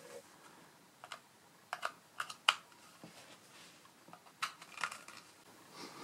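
Scattered light plastic clicks and taps as USB-C cable plugs are pushed into the ports of a Treedix USB cable tester and the small plastic tester is handled. The sharpest click comes about two and a half seconds in.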